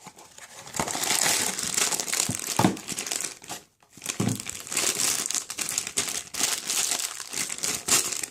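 Crinkly plastic packaging being crumpled and pulled apart by hand to get at a blind-box toy figure, in two long stretches with a short pause between them.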